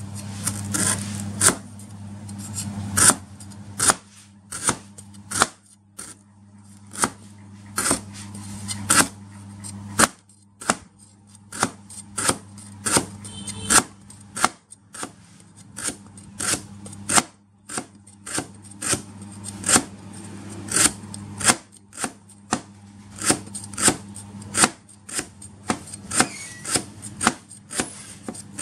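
Square cleaver slicing lemongrass stalks into thin rings, each stroke a sharp knock on the cutting board, in a steady run of about two chops a second.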